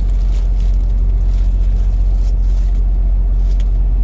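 Steady low rumble of a running vehicle, with a few faint, brief crackles over it.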